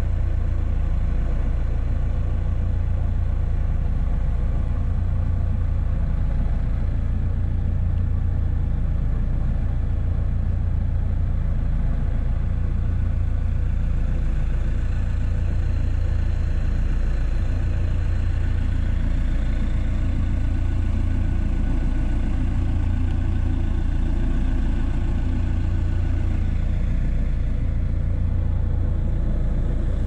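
A 1994 John Deere 310D backhoe's diesel engine idling steadily, the sound mostly low-pitched and even throughout.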